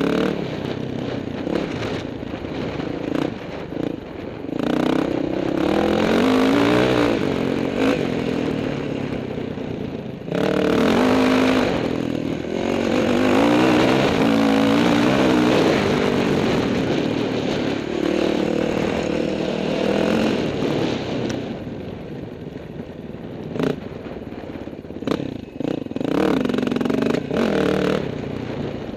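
Yamaha dirt bike engine revving up and down over and over while riding, with sharp knocks and clatter now and then from the bike going over rough, rocky ground.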